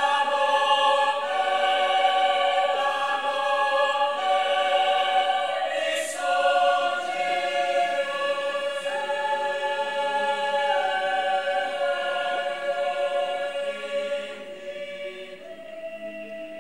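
Mixed choir of men's and women's voices singing in sustained chords under a conductor. Near the end it grows quieter and settles on a single held note.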